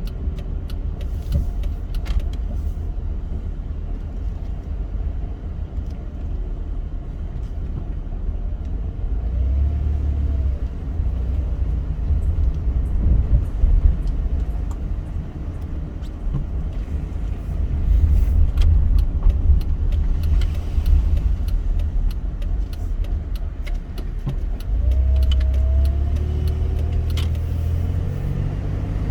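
Car driving, with a steady low road and engine rumble that swells at times and a faint whine that rises and falls now and then.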